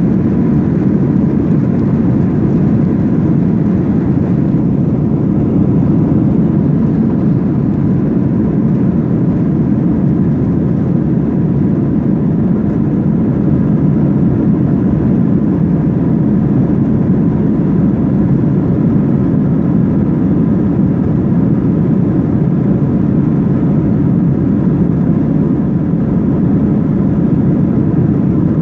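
Airbus A321-200 cabin noise during the take-off roll: the jet engines at take-off power, heard from inside the cabin behind the wing as a loud, steady rushing drone with a faint steady whine over it.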